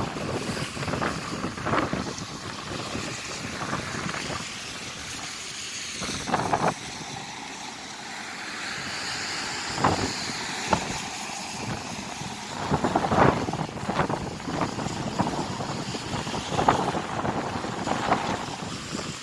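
Gusty wind buffeting the microphone in uneven bursts, over the steady rush of a river in full flood, with road traffic passing around the middle.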